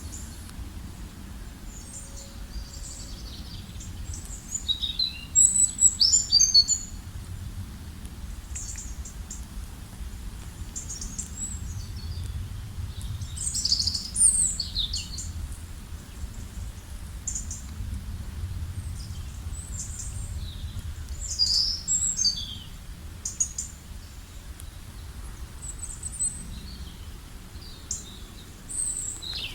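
Several songbirds chirping and trilling in short, high, overlapping phrases, the loudest bursts about 5 seconds in, near the middle and about 22 seconds in, over a steady low background rumble.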